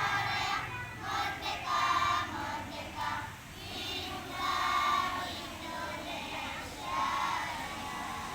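A group of children singing together in slow, drawn-out phrases, each note held for up to about a second.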